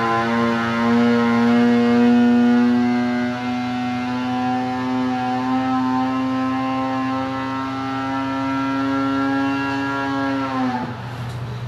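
Arctic Cat Alpha snowmobile's C-TEC 800 two-stroke twin held at full throttle on a dyno during a power sweep. Its steady high-pitched note climbs slowly as the engine pulls from about 6,800 to 8,200 rpm under load, then the throttle is cut near the end and the note drops away quickly.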